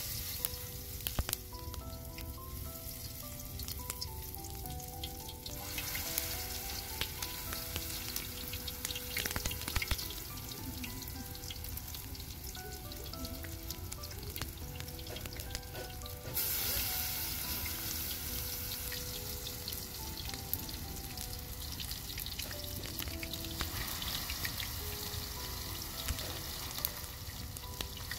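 Potato patties frying in hot oil in a wide steel pan over a wood fire: a steady sizzle that gets louder a little past halfway, with occasional clicks of the spoon against the pan. Soft background music with a plucked melody plays underneath.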